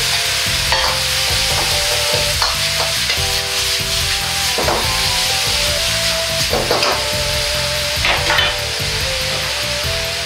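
Pork and onions sizzling in a hot iron wok, with a steady frying hiss. A metal ladle stirs and tosses the food, scraping and knocking against the wok several times.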